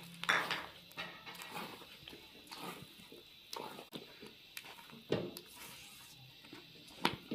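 Slotted spatula stirring thick, sticky halwa in an aluminium pot: short separate scrapes against the pot, one every second or so.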